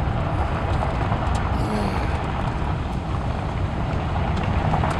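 Steady engine and tyre noise of a car driving on a paved road, heard from inside the cabin.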